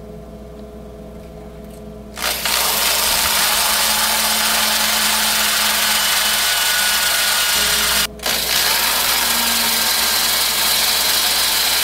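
Handheld electric drill drilling screw holes through the sheet-steel rim of a power-supply chassis. It starts about two seconds in, stops for a moment about two-thirds of the way through, then drills again.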